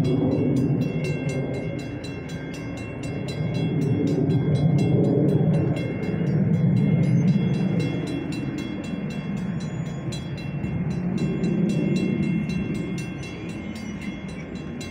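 Metra commuter train rumbling along the line, its noise swelling and easing several times and fading near the end. Over it a railroad crossing bell rings in fast, even strokes.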